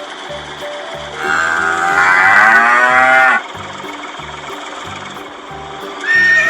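A cow moos once, a long, loud call of about two seconds, over background music with a steady beat. A horse begins to whinny near the end.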